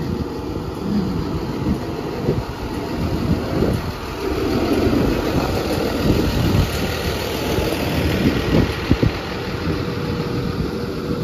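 Motor vehicle engines running close by on a road: a trolley bus idling beside the pavement, then cars passing. There are a few sharp knocks about nine seconds in.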